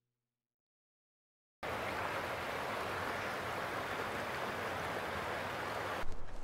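Silence, then about one and a half seconds in, a steady rush of breaking sea waves starts abruptly. Near the end it gives way to a lower, gustier rumble.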